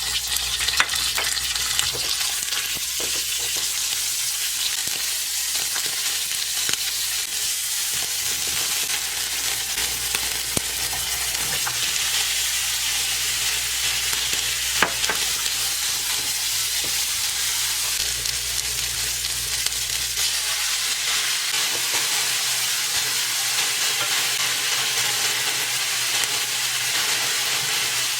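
Food sizzling in hot oil in a frying pan as it is stir-fried, with a few sharp clicks of a utensil against the pan. A low hum underneath stops about three-quarters of the way through.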